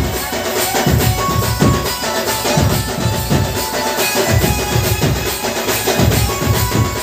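Band party music: a heavy bass drum beat about once a second with other drums, under a sustained melody line.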